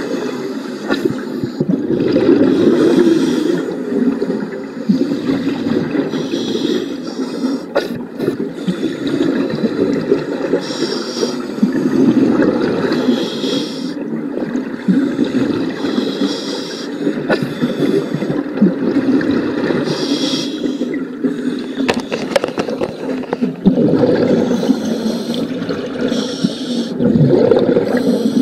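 Scuba regulator breathing heard underwater: a continuous bubbling rumble, with a hissing burst every three to four seconds as the diver breathes through the regulator.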